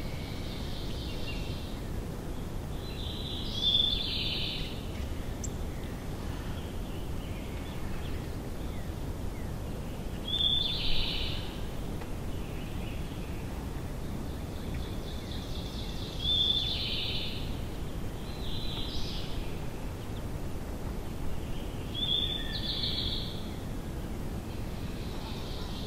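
A songbird singing short, high-pitched phrases about every six seconds, with a few fainter phrases between, over a steady low outdoor background hiss.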